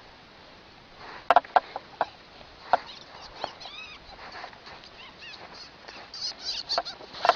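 Short, high-pitched animal squeaks and chirps, some rising and falling in pitch, coming in scattered bursts that grow busier near the end.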